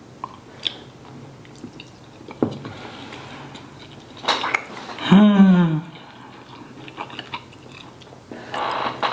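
Mouth sounds of a person eating: chewing with small wet clicks, and one short hummed 'mm' about five seconds in that falls in pitch and is the loudest sound. Utensils clatter against a dish near the end.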